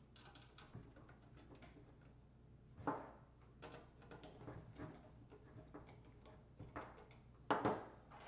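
Faint clicks and taps of small metal screws and a hand screwdriver fastening a metal dash-kit bracket to a car stereo's chassis, with a few louder sharp knocks about three seconds in and near the end.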